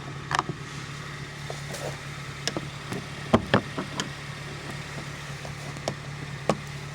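Plastic door trim panel of a car being worked at by hand while prying it off: scattered knocks and clicks, the loudest a cluster about three and a half seconds in, over a steady low hum.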